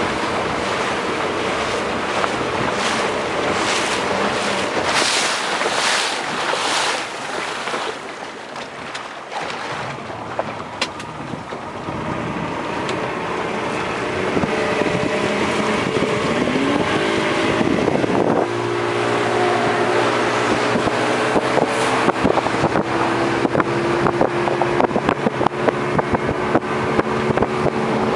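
Motorboat under way: water rushing and splashing against the hull with wind buffeting the microphone, then the engine's pitch rises about two-thirds of the way in and holds steady as the boat speeds up.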